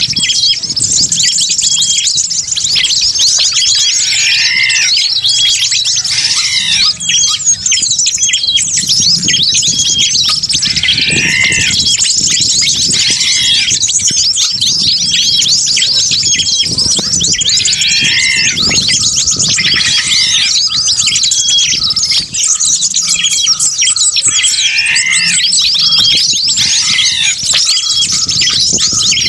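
A dense chorus of many small wild birds calling at once, a layered bird-lure (pikat) recording mixed to draw in wild birds. Fast, high chattering chirps run throughout, with a lower falling call repeating every few seconds.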